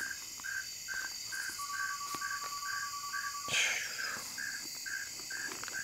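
Evening insect chorus: crickets chirping about twice a second over a steady high buzz of other insects. A thin steady tone sounds for about two seconds in the middle.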